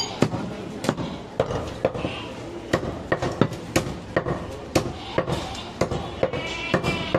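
Heavy butcher's cleaver chopping goat meat on a wooden chopping block: sharp knocks, about two a second, unevenly spaced.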